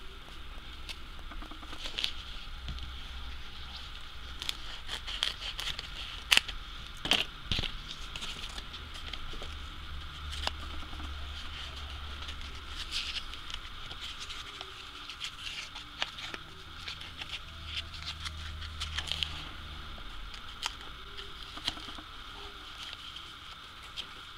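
Soft paper rustling and crinkling, with scattered light taps and clicks, as it is folded and wrapped around the jointed limbs of a ball-jointed doll. A few sharper clicks come about six and seven seconds in, over a faint steady hiss.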